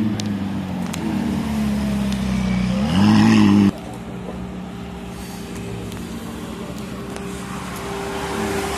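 A McLaren supercar's engine running as it drives slowly in, with a short, loud rising rev about three seconds in that cuts off abruptly. Then a Ferrari 458 Spider's V8 running steadily at low speed as it rolls past.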